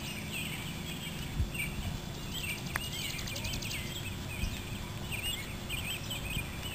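Birds chirping over and over in short high calls, with a rapid, even, high trill from about a second and a half in to about four seconds, over a constant low rumble.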